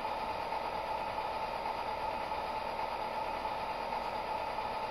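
SoundTraxx Econami sound decoder in an HO-scale SD40-2 model locomotive playing a diesel engine sound through its small speaker, running steadily as it is stepped down through the throttle notches toward idle.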